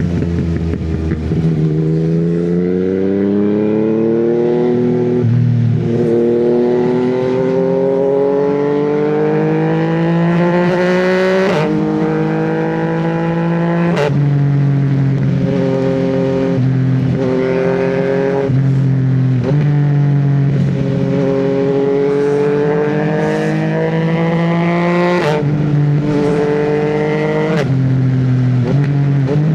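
Yamaha MT-09 inline-three engine pulling hard through the gears, with repeated quickshifter upshifts. Each shift makes the revs climb, then drop sharply and climb again, with a sharp crack at one shift.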